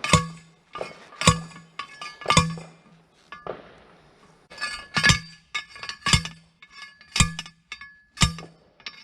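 Hand-held post driver hammering a metal fence post into the ground: sharp ringing clanks about once a second, three, a short lull, then four more.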